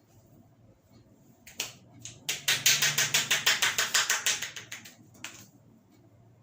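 A barber's hands tapping rapidly in a percussive head massage, about nine quick strikes a second for a little over two seconds. A few single claps come before and after the run.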